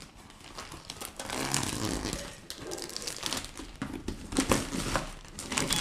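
Clear plastic shrink-wrap being cut open and pulled off a cardboard box, crinkling and rustling irregularly with a few sharp crackles.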